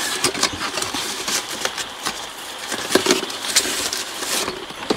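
Hands handling a small corrugated-cardboard box and its card and string ties: rustling with many small scratches and clicks.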